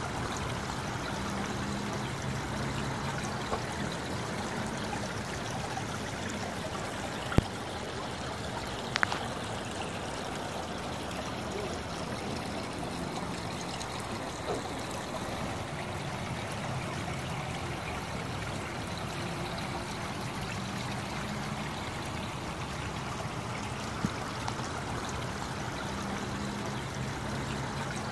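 Water running and trickling steadily over the rocks and pebbles of a garden pond's stream and waterfall. A few brief sharp clicks cut through it, the loudest about seven seconds in.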